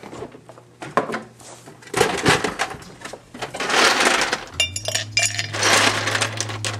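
Ice cubes from a refrigerator door ice dispenser clattering into a glass mug, a run of clinks and crackles, with a steady low hum joining about two-thirds of the way in.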